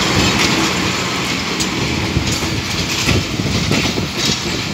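Sagordari Express passenger coaches of Bangladesh Railway rolling past on the next track as the train departs: a steady rumble of steel wheels on rail, with irregular clacking as the wheels cross the rail joints.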